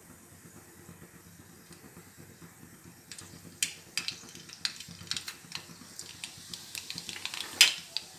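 Mustard seeds and cumin seeds spluttering in hot oil in a kadhai for a tadka: faint at first, then sharp pops from about three seconds in that come faster, with one loud pop near the end. The popping is the sign that the oil is hot enough for the tempering.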